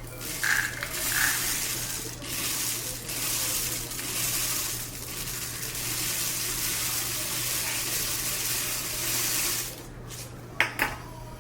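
Dry white rice being poured into a cardboard paper-towel tube capped with aluminum foil: a steady pattering hiss of grains that lasts about ten seconds and then stops. A few light ticks follow near the end.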